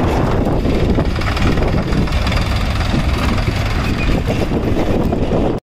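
HMT 3522 tractor's three-cylinder diesel engine running as the tractor drives off pulling its trolley. The sound cuts off suddenly near the end.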